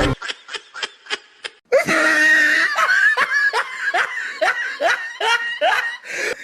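People laughing hard in quick rhythmic bursts, quieter at first and much louder from about two seconds in.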